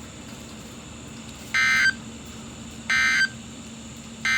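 Emergency Alert System end-of-message (EOM) data bursts over NOAA Weather Radio: three short, buzzy digital bursts about a second and a half apart, the last one right at the end, marking the end of the severe thunderstorm warning. A faint steady hum from the radio runs beneath them.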